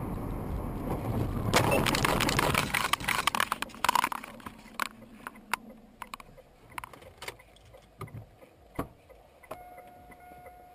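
Car crash heard from inside the car: steady road noise, then about 1.5 s in a sudden loud impact followed by a couple of seconds of crunching, clattering and breaking glass as the windshield cracks. Scattered clicks and tinkles of settling debris follow, and near the end a steady electronic beep tone starts.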